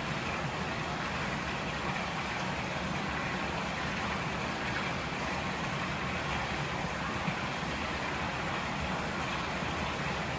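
A river flowing, a steady rushing of water with no change in level.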